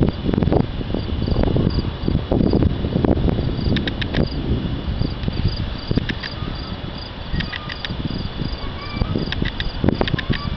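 Crickets chirping steadily in a fast, even pulse, with bursts of quicker trills, over a low, uneven rumble that swells and fades.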